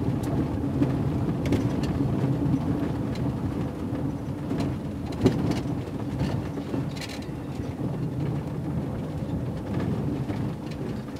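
Van driving, heard through a dash camera's microphone: a steady low road and cabin rumble with scattered clicks and rattles, and one sharp knock about five seconds in.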